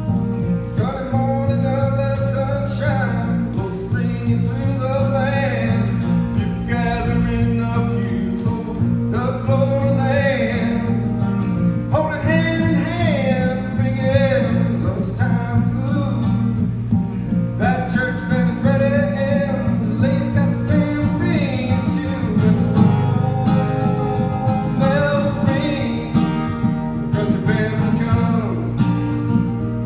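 A singer performing a country-style song over guitar accompaniment, with the voice carrying long, held sung phrases above steady chords.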